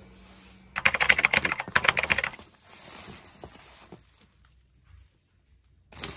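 Bubble wrap and plastic on a parcel crackling and rustling under handling fingers: a quick run of sharp clicks for about two seconds, then a softer rustle, dying away to near silence near the end.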